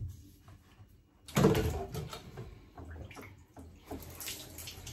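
Plastic bottles and siphon tubing being handled on a wooden shelf: a knock, then from about a second in an irregular run of knocks and rustles.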